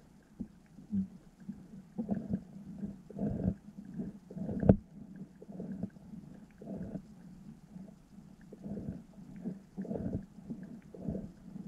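Underwater sound as heard through a submerged camera: irregular low thumps and rumbles coming in clusters, with one sharp click about four and a half seconds in.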